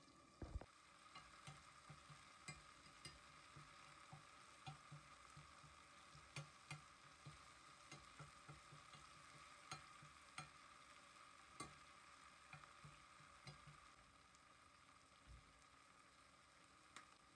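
Faint sizzling of food frying in a pan, with light irregular clicks and taps of a utensil stirring.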